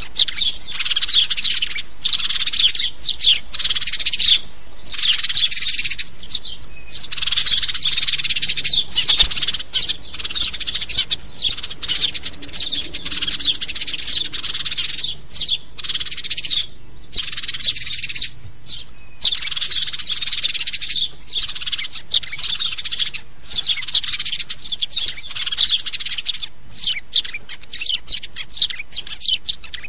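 House sparrows chirping: dense runs of rapid chirps, each lasting a second or two, separated by brief pauses. Toward the end the runs give way to sparser single chirps.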